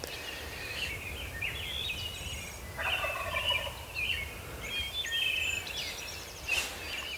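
Wild turkey gobbler gobbling once from the roost, a single rattling gobble about three seconds in, with shorter high bird calls around it.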